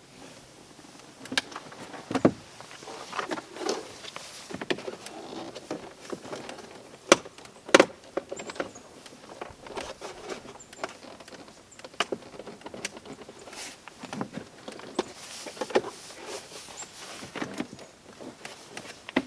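Hands working on a car's plastic door trim panel: scattered plastic clicks, knocks and rustling. A pair of sharper snaps comes about 7 and 8 seconds in.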